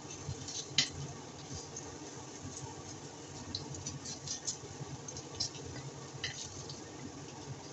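Potato omelette frying in oil in a stainless steel wok, with scattered small crackles and pops, over a steady low hum. A wooden spatula presses the omelette and knocks once sharply on the pan about a second in.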